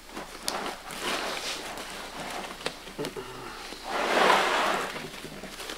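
Nylon backpack fabric and airbag parts rustling while being handled, with scattered small clicks and a louder rustle about four seconds in, as the airbag's attachment pieces are worked through the tabs at the top of the pack.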